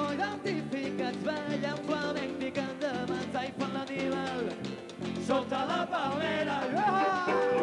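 Live rumba band playing: a singer's voice carries the melody over guitar chords and a steady Latin percussion beat.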